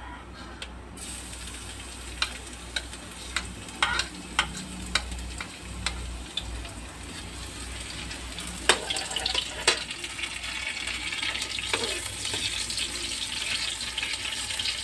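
Minced garlic sizzling in hot cooking oil in a wok, the sizzle starting about a second in and growing louder near the end. A metal spoon clicks and scrapes against the wok as the garlic is tipped in and stirred.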